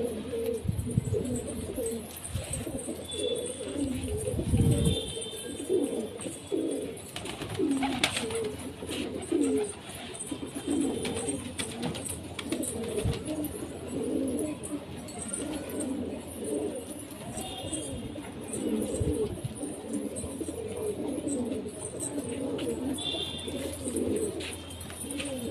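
A flock of domestic pigeons cooing, many low coos overlapping one another, with a few short knocks among them.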